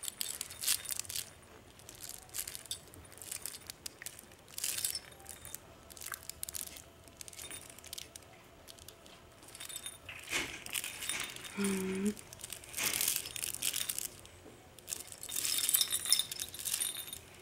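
Baby toys rattling and clinking in short, irregular bursts as an infant grabs and shakes a plush ball toy hung with plastic rings and links.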